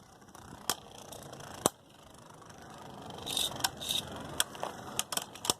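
Two Beyblade Burst spinning tops whirring in a plastic stadium, with repeated sharp clacks as they strike each other.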